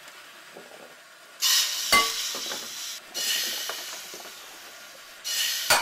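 Food sizzling in a hot pan in three bursts of hissing, each a second or so long, with a short metallic clink near the start of the first burst.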